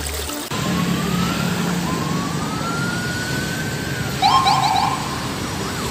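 Police car siren on a street: a wail whose pitch rises slowly twice and then sinks, followed about four seconds in by a short burst of quick chirping yelps, over the steady noise of passing traffic.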